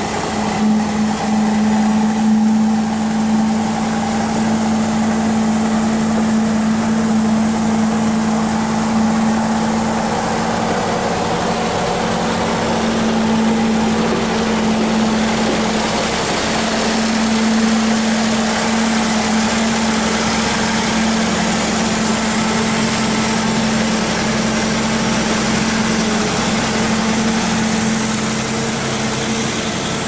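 Backhoe engine running at a steady speed while the machine is driven into position, a loud, even drone with one strong low tone.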